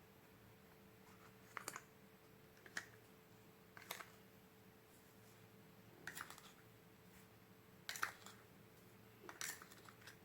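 Slime being worked by hand, giving six short soft clicks and pops, one every second or two.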